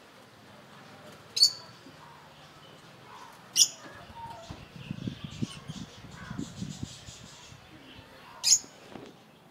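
Pigeons bathing in a shallow water basin: splashing and wing-flapping in the water, busiest in the middle, broken three times by a short, sharp, high-pitched bird call.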